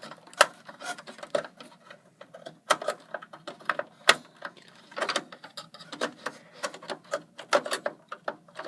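Irregular clicks, taps and light rattles of plastic and metal as a DDR2 RAM module is worked into a desktop computer's memory slot among the case's cables.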